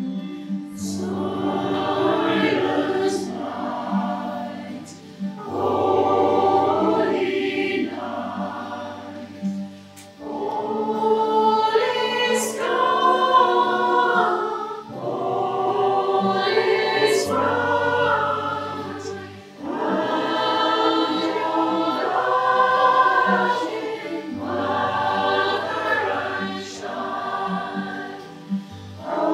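A choir singing a slow piece in long phrases with short breaks between them, over steady low sustained accompaniment notes.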